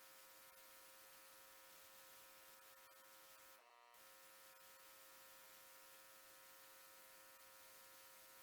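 Near silence: a faint steady electrical hum over hiss, briefly cutting out about three and a half seconds in.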